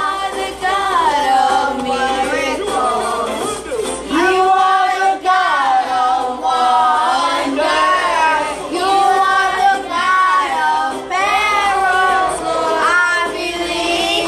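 Children and adults singing a song together in long held, gliding notes, phrase after phrase.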